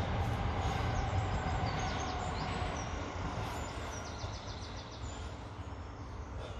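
Steady low rumble that eases off slightly after about three seconds, with faint high bird chirps and a short trill around the middle.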